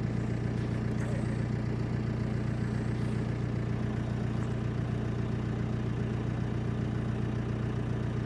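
A vehicle engine running steadily with an even low hum, its pitch unchanging.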